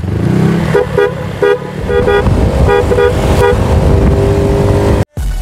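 Denso Powertone waterproof snail horns, a low- and high-tone pair sounding together, give a series of short toots, about eight in the first three and a half seconds, over a steady low rumble. The sound cuts off suddenly near the end.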